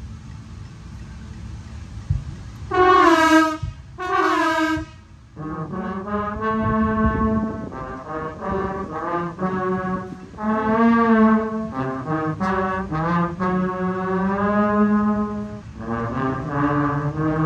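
Marching-band trombone section playing together in harmony: two short, loud held chords about three and four seconds in, then a continuous passage of long held chords that shift in pitch.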